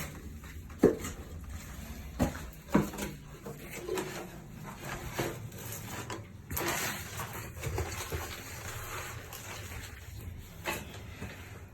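Hose water spraying and splashing onto stone, with a few sharp knocks and clatters; the spray hiss rises for a second or so about six and a half seconds in.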